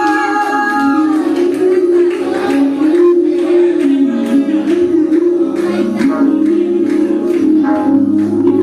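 Live band music: an instrumental passage of the song with sustained guitar or keyboard lines over a steady drum beat.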